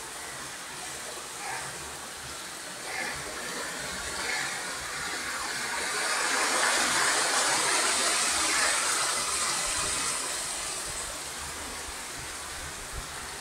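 Rain falling on leaves as a steady hiss, swelling louder for a few seconds midway and then easing back.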